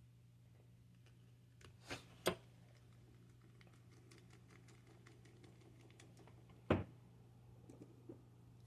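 Clicks and knocks of small RC beadlock wheel parts and screws being handled and fitted: two sharp clicks about two seconds in, faint light ticking after them, and a louder knock near the end.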